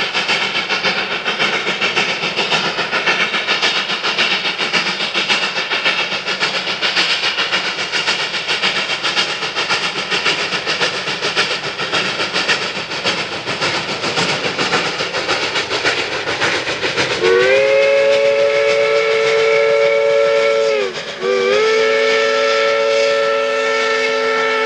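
Coal-fired K-36 2-8-2 narrow gauge steam locomotive passing with a steady, loud exhaust chuff as its freight cars clatter over the rail joints. About 17 seconds in, its steam whistle blows two long blasts, each sliding up into pitch at the start, the second running on to the end.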